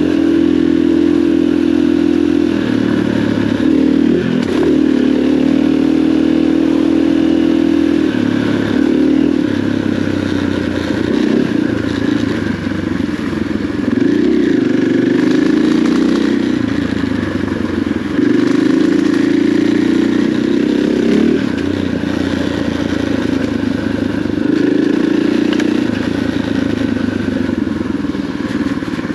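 KTM four-stroke enduro dirt bike's engine running under way at moderate revs, with the throttle eased off and opened again every few seconds as it rides a muddy trail.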